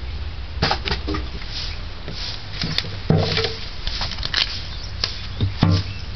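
Split firewood knocking and scraping as it is handled and pushed by hand into the brick firebox of an oil-drum charcoal kiln: scattered clicks, with louder knocks about three seconds in and again near the end.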